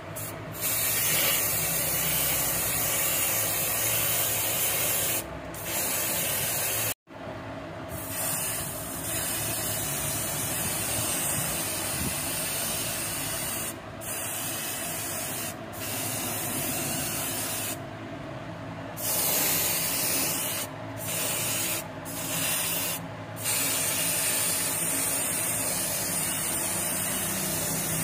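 Aerosol can of underbody wax spraying, a steady loud hiss in long bursts broken by several short pauses.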